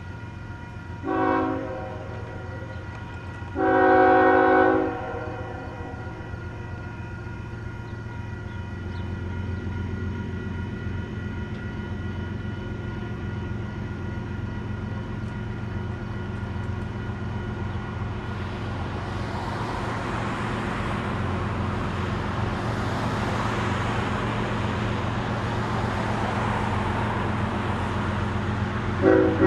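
Nathan K5HL five-chime horn on an approaching Norfolk Southern freight locomotive blowing a short blast and then a longer one, over the steady low rumble of the train's diesel engines. The rumble grows into a rising rush of train noise about two-thirds of the way through, and the horn gives another brief blast at the very end.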